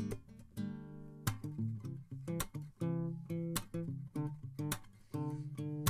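Background music played on guitar: a run of plucked notes and chords.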